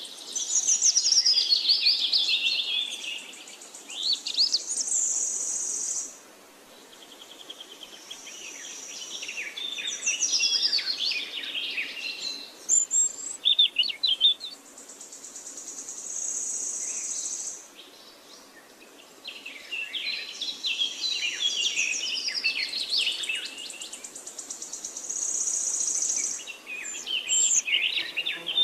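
Wild birdsong: repeated bursts of fast, falling trills and chirps every few seconds, with a steady high insect buzz that comes and goes between them.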